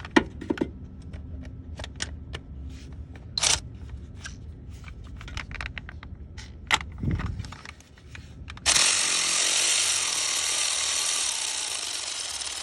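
Hand tools clicking and tapping irregularly against metal while the bolt on a 2007 Jeep Grand Cherokee 3.7 L crankshaft position sensor is being worked loose. About nine seconds in, a loud steady hiss starts suddenly and holds.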